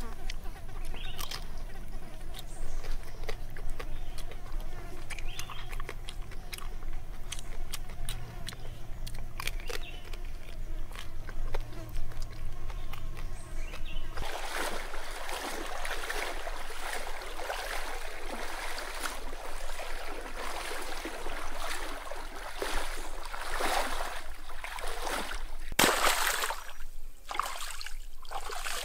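A person chewing, with frequent small clicks of mouth and food. About halfway through this gives way to water sloshing and splashing as a raw pig head is washed in a stream, with one louder splash near the end.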